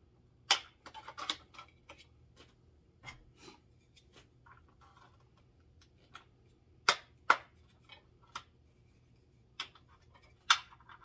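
Hard plastic toy parts clicking and scraping as carbonite-block bounty pieces are worked onto the hanger clips of a Razor Crest playset panel. The sharp clicks come in small groups with pauses between them.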